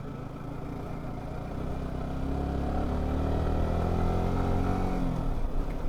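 Motorcycle engine running, growing louder over a few seconds with a slight shift in pitch, then dropping away shortly before the end.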